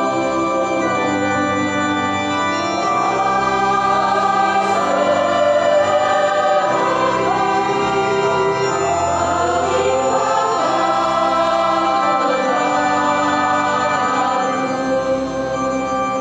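A church choir singing a hymn with organ accompaniment, many voices sustaining chords over the organ.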